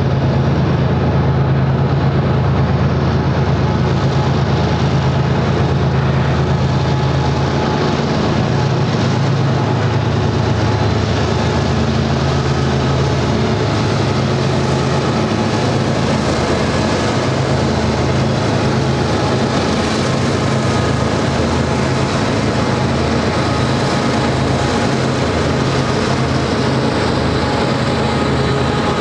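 Union Pacific GE C45ACCTE (ES44AC) diesel-electric locomotives running past under power, their diesel engine drone strongest in the first half. Freight cars then roll by, mostly covered hoppers, with steady wheel-on-rail noise.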